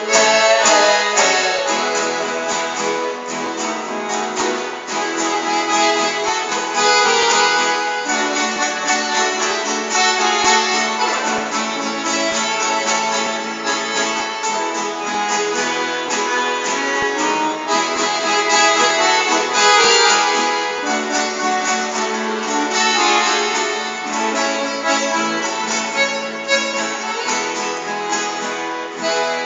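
Accordion and acoustic guitar playing an instrumental passage of a sertanejo song, the accordion carrying the melody over strummed guitar chords.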